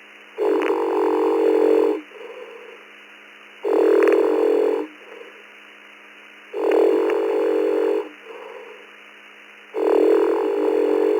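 A sleeping man snoring, heard through a ham radio receiver's narrow, tinny audio: four loud rasping snores about three seconds apart, each followed by a fainter breath out. His transceiver was left on VOX, so the snoring keys it and goes out over the repeater network.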